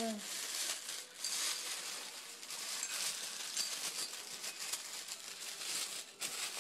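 Tissue paper rustling and crinkling as a small bell ornament is unwrapped by hand, with a few faint high metallic tinkles.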